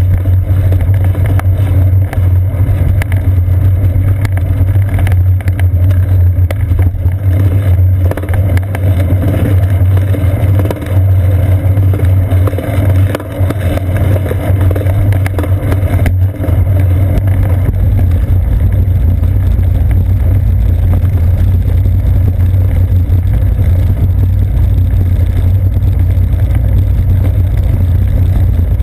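Steady low rumble and vibration picked up by a seat-post-mounted GoPro Hero 2 as the bicycle rolls over brick and asphalt streets, with a fine rattling texture throughout.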